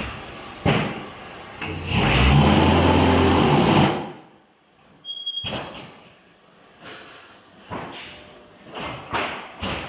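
Concrete block-making machine at work: metal clanks and thuds, then a loud, steady vibrating hum for about two seconds from about two seconds in, the sound of the mould being vibrated to compact the concrete. After a short lull come more separate clanks and knocks.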